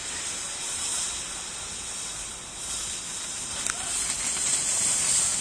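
A ground fountain firework hissing steadily as it sprays sparks, growing louder in the last couple of seconds.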